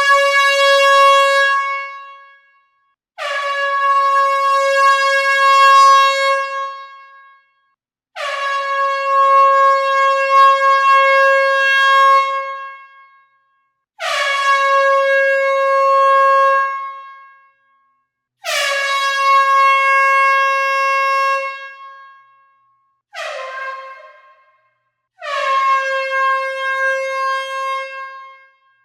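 Air horn sounding in a series of loud blasts with short gaps between them, most about three to four seconds long and one short blast near the end. Each blast is a single steady tone with many overtones, dipping slightly in pitch as it starts and fading out at the end.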